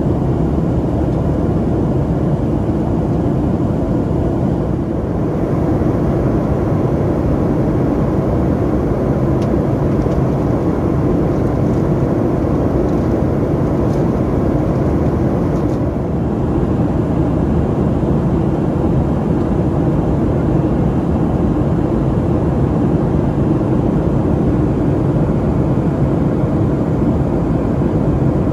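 Steady cabin noise of a Boeing 737-400 in flight: a loud, even rush of its CFM56-3 jet engines and airflow, heard from a window seat over the wing.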